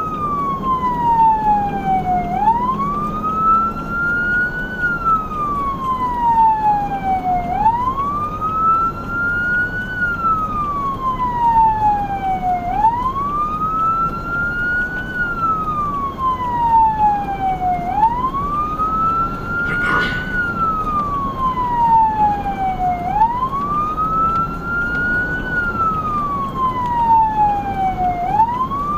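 Emergency vehicle's electronic siren in wail mode: a tone that climbs quickly and then falls slowly, repeating about every five seconds, over the steady rumble of the vehicle on the road. It is sounding while the vehicle runs on an emergency response. A brief sharp burst cuts in about two-thirds of the way through.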